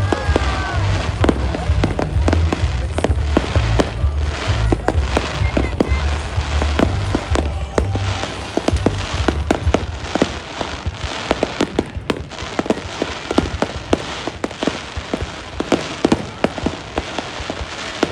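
Aerial fireworks going off in quick, irregular succession: many sharp bangs and crackles, with music's deep bass pulsing underneath for about the first half.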